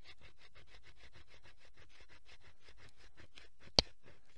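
Carbon-steel Nessmuk knife blade scraping an oak stick in rapid, even strokes, about eight a second, rasping off fine fluffy shavings for tinder. A single sharp click near the end.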